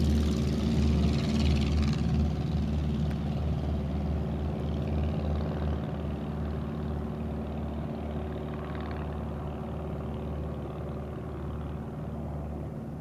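Small homebuilt parasol-wing airplane's piston engine running at takeoff power, its steady drone fading as the plane lifts off and climbs away.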